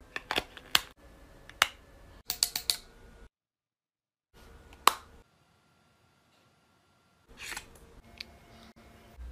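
Sharp plastic clicks and snaps from cosmetic containers and caps being opened and handled. There is a run of clicks in the first three seconds, a single loud click near the middle, a near-silent gap, and more clicks near the end.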